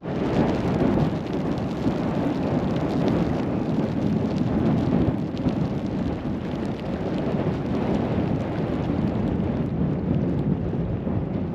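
Strong wind blowing hard across the microphone, a loud, steady, rumbling rush that starts abruptly.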